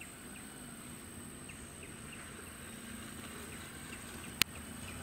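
Quiet forest background: a steady high-pitched insect whine with faint chirps repeating about twice a second, and one sharp click about four and a half seconds in.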